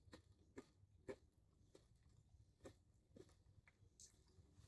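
Faint chewing of a soft sandwich: scattered short mouth clicks, roughly one or two a second, against a quiet room.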